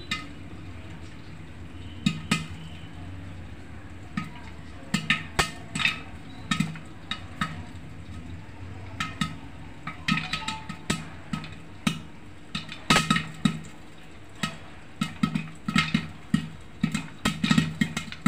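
Popcorn kernels popping inside a closed metal pressure cooker: irregular sharp pops that knock and ring against the pot, coming more often in the second half, over a low steady hum.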